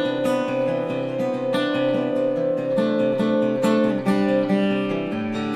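Fender acoustic guitar strummed in a folk song's instrumental passage, over a long steady held note.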